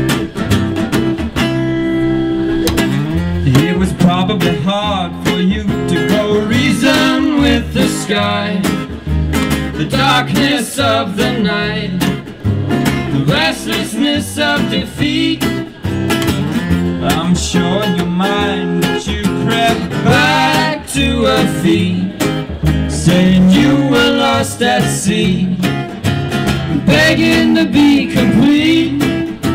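Acoustic guitar and plucked upright double bass playing a song together, a steady low bass line under the guitar.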